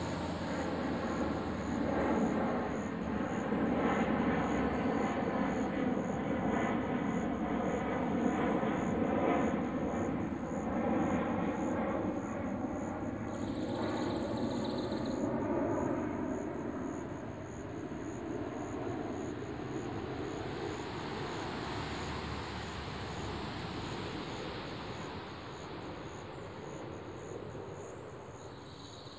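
Propeller airplane flying past, its engine drone slowly falling in pitch as it goes by and fading away toward the end. A steady pulsing insect trill runs high above it.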